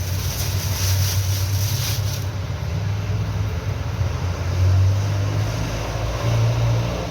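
Deep bass notes from a loudspeaker system, changing pitch every second or two, with a hiss that stops about two seconds in.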